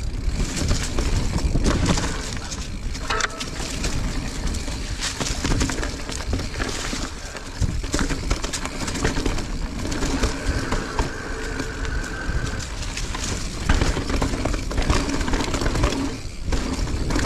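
Mountain bike being ridden along a dirt singletrack: tyres rolling over the trail with constant chain and frame rattle, and wind noise on the microphone. A steady high whine sounds for a couple of seconds about ten seconds in.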